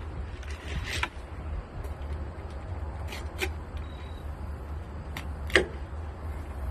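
Fillet knife cutting along a white bass's backbone on a plastic cutting board, with a few sharp clicks and taps, the loudest about five and a half seconds in, over a steady low hum.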